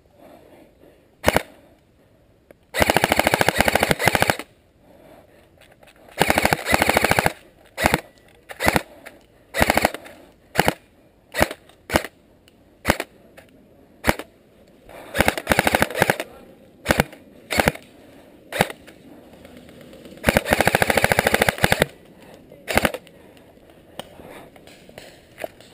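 Airsoft rifle firing: four long full-auto bursts of a second or more, with single shots and short bursts in between.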